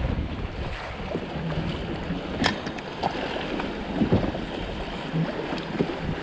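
Wind buffeting the microphone over choppy sea slapping against a small boat's hull, with a couple of short sharp knocks.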